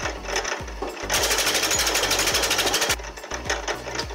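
Homemade electric wood-cutting machine pulling a branch through its feed rollers and chopping it into short pieces: a fast, even mechanical clatter from about a second in until near the end, with quieter, irregular knocks around it.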